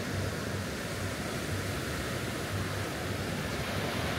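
Small sea waves breaking and washing up on a sandy shore: a steady, even wash of surf.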